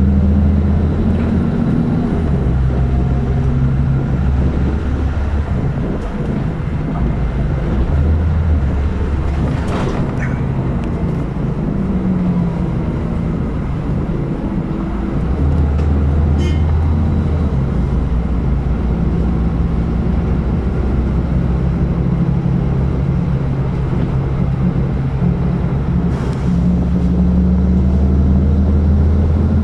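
City bus engine running, heard from inside the bus, a loud low drone that shifts up and down in pitch several times as the bus drives along. A few short sharp clicks or rattles come through, about ten, sixteen and twenty-six seconds in.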